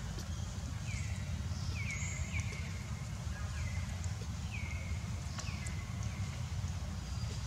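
A short, high call that falls in pitch and then levels off, repeated about once a second, over a steady low rumble.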